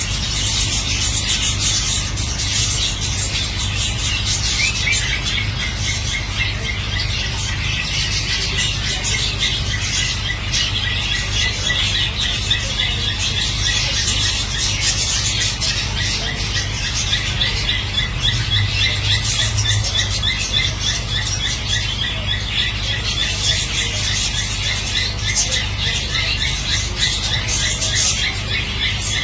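Many caged pet birds chattering and squawking without pause, with a fast repeated call joining in about five seconds in, over a steady low hum.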